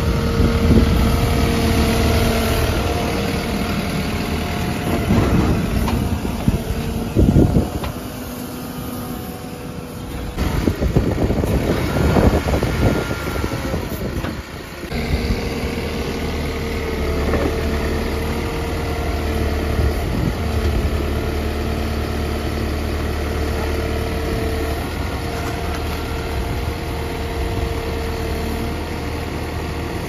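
Backhoe loader's diesel engine running steadily with a held tone, growing louder a couple of times as the machine works.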